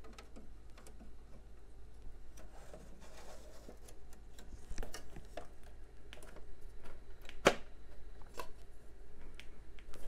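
Sheet-metal PCIe riser cage being lowered and pressed into place in a Dell PowerEdge R820 server chassis by hand: scattered light metal clicks and taps, with one sharper click about seven and a half seconds in.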